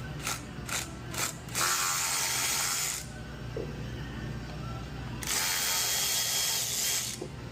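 Power driver run in bursts: three quick taps, then two longer runs of about one and a half to two seconds, backing out the fasteners that hold the old fuel pump on the mower engine.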